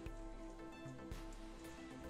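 Quiet background music with steady held notes, with two faint knocks, one right at the start and one about a second in.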